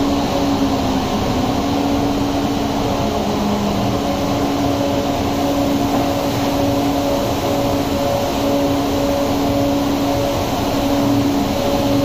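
Industrial fabric blower running, a steady rush of air with an even hum. It is inflating tubes of wet, freshly dyed knit fabric into taut columns to dry them.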